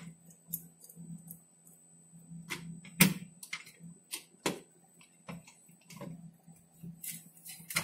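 Scattered metallic clicks and taps of a screwdriver and screw against a monitor's sheet-metal chassis as a screw is tried in a board's mounting hole, the sharpest click about three seconds in; the screw will not go in because it is the wrong screw. A faint steady low hum runs underneath.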